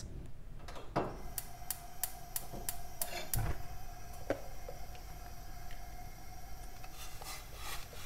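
Kitchen clatter of pots, a saucepan and a blender jar at a gas stove. A quick run of light clicks comes at about three a second, then a soft low thump, then a few more clicks and rustling near the end as the blender jar is tipped over the saucepan.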